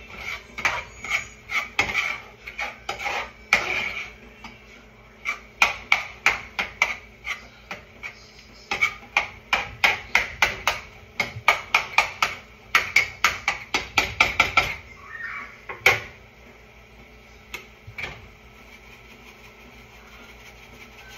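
A utensil knocking and scraping against a cooking pot while ground beef is stirred and broken up, in quick runs of clanks at about three to four a second. The clanking stops about 15 seconds in.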